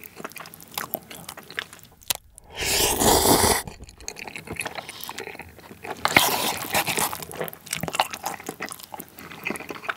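A person slurping up a mouthful of black-bean-sauce instant noodles in one loud, roughly one-second slurp about three seconds in, then chewing them with wet, sticky clicking mouth sounds.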